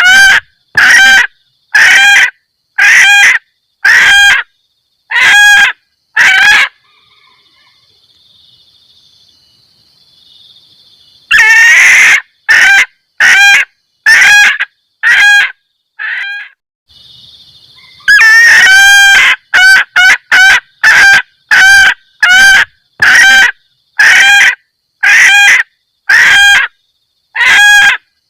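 Junglefowl hen giving the 'kekkek' mating call, played as a lure to draw in males: loud, short clucking calls about one a second. They stop for a few seconds partway through, then resume with one longer call and a quicker run.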